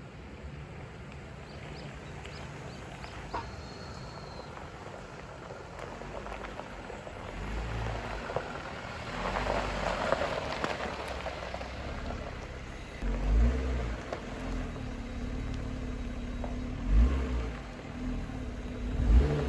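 A car engine running, most likely the Jeep Wrangler's 3.6-litre V6, with a steadier engine tone and low thumps setting in about two-thirds of the way through. A few short high chirps come in the first few seconds.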